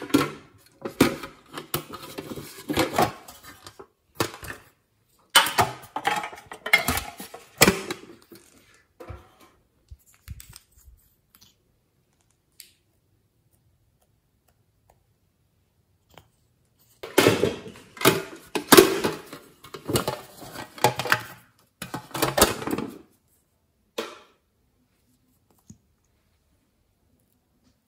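Hands handling plastic makeup packaging and containers: rustling, clicks and taps in three bursts, with silent stretches between.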